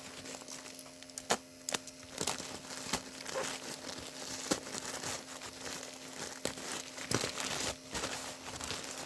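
Parcel packaging being opened by hand: irregular crinkling and crackling with sharp snaps and tearing, over a steady low electrical hum.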